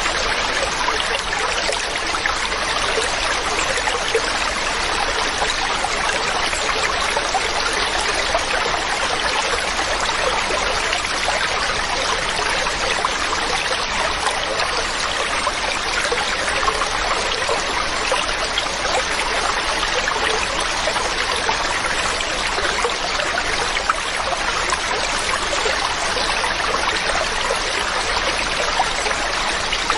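Running mountain water, a steady even rush with no breaks or changes.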